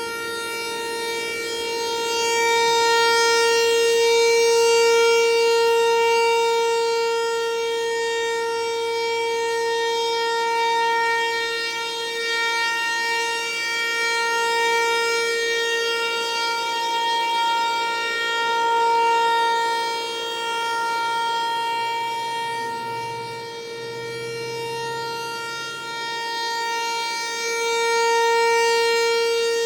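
ASC Tempest-135 outdoor warning siren sounding a steady tone at one pitch. Its loudness swells and fades every several seconds as the rotating horn sweeps past.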